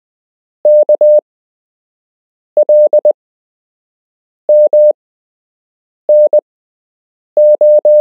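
Morse code sent as a steady pure beep near 600 Hz: five letters, K, L, M, N and O, each a short group of long and short tones with about a second or more of silence between letters.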